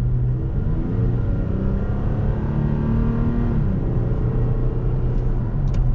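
2017 Toyota Tacoma's 3.5-litre V6 pulling under acceleration, its pitch climbing steadily for about three seconds. The revs then drop sharply as the six-speed automatic upshifts, and the engine settles into a steady drone.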